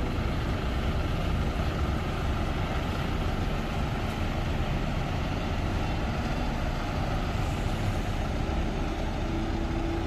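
Large coach bus engine idling, a steady low rumble, with a faint steady tone coming in near the end.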